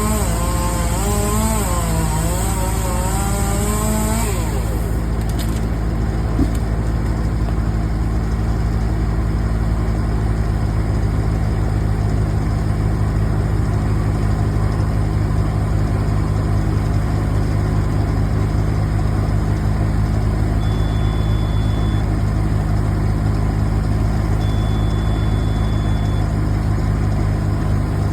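A chainsaw running with its pitch rising and falling stops about four seconds in. A heavy engine then runs steadily at idle.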